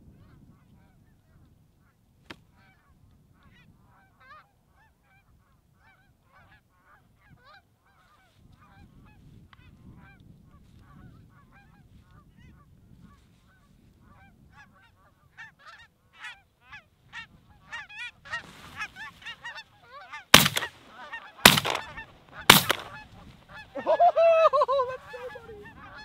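A flock of Canada geese honking, the calls growing denser and louder as the birds come in, then three shotgun shots about a second apart, the loudest sounds, followed by more loud honking.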